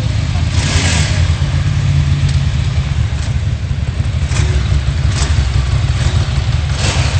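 A Ducati 90° V-twin motorcycle engine running steadily at idle, with a low, pulsing exhaust note. Brief hissing noises come through about a second in, about five seconds in and near the end.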